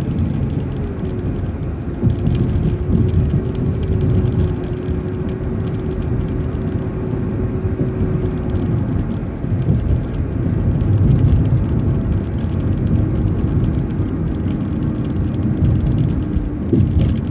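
City bus driving on the road, heard from on board: a continuous low engine and road rumble with a faint steady drone that drops slightly in pitch about halfway through.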